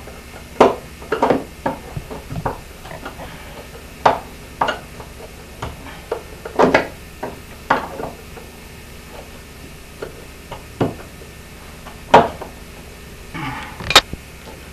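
Hand screwdriver clicking and scraping on screw heads as screws are driven into a strip along a boat's hull: a run of irregular sharp metallic clicks and knocks, the loudest near the end.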